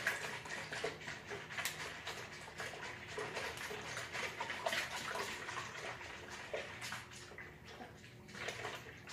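Pudding mix being stirred in a large plastic mixing bowl: a continuous run of irregular sloshing and scraping strokes as the utensil works through the liquid.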